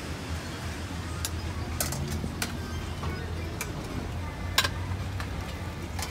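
Street-food stall ambience: a steady low hum with scattered sharp clicks and clinks of utensils and plastic being handled at the stall.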